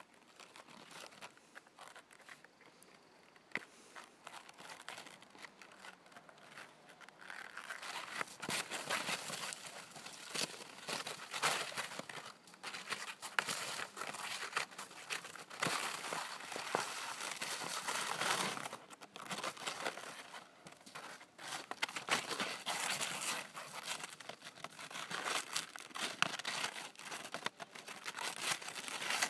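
A Bernese mountain dog biting and shaking a plastic pet cone collar, the plastic crinkling and crackling in irregular bursts. The crackling gets louder from about seven seconds in.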